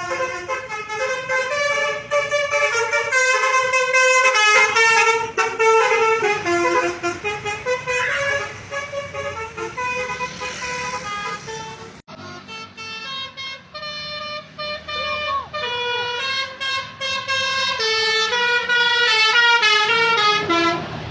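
Basuri telolet musical bus horn playing a quick tune of stepped notes, with a sudden break about twelve seconds in before another tune starts.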